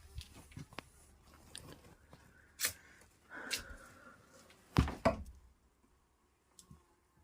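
A few sharp knocks and thuds on something hard, with a short scraping rustle about three seconds in; the loudest are two heavy thuds close together about five seconds in.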